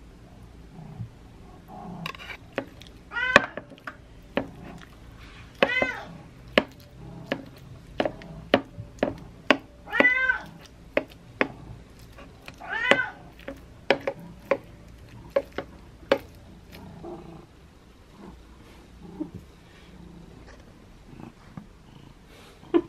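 Domestic cat meowing about four times for its food while a metal spoon clinks and scrapes against a ceramic bowl, dishing out canned pâté cat food.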